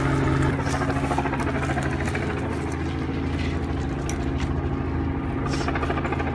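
An engine running steadily at idle with an even pulsing hum; a deeper part of the hum drops away about half a second in. A few light clicks of handling sound on top.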